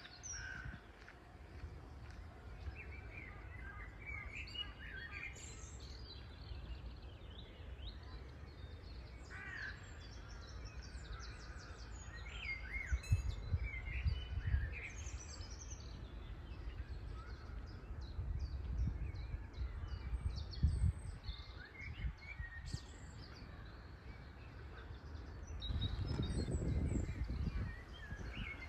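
Several birds chirping and calling in short, scattered notes and quick up-and-down whistles, over a steady low rumble that swells for a couple of seconds near the end.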